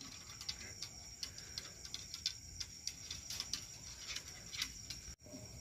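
Faint, irregular clicking of a small dog's claws on wooden planks, a few ticks a second. A steady high insect trill runs behind it.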